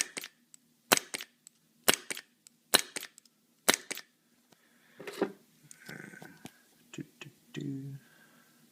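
The Ion paintball marker's solenoid clicks in pairs: the bolt pulls open and then snaps shut about a quarter second later. That is the closed-bolt board's 250 ms timeout, because the breech eyes see no ball. This happens five times, about once a second, and then stops.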